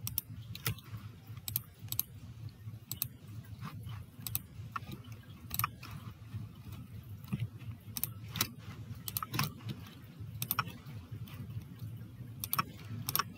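Faint, irregular keystrokes and clicks on a computer keyboard, a few each second at uneven spacing, over a low steady hum.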